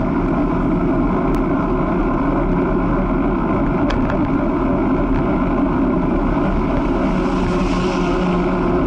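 Engine of the camera-carrying vehicle running at a steady cruise, with road and wind noise over it. The hiss grows a little near the end.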